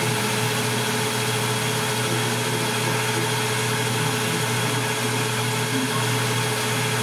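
Metal lathe running steadily with its spindle turning, a constant hum with a steady whine over it, while the tool is fed in to cut a recessed crown into the muzzle end of a rifle barrel.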